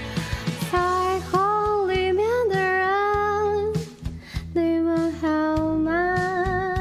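A song: a singing voice holding long notes with a slight waver, over guitar and a steady beat.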